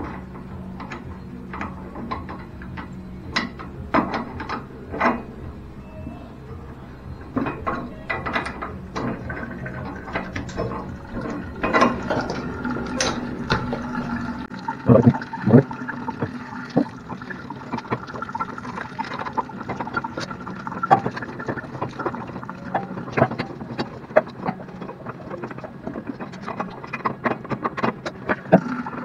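Irregular clicks, taps and knocks from hands and tools working on a shower valve's metal pipe fittings inside an opened wall. A low background hum stops about halfway through.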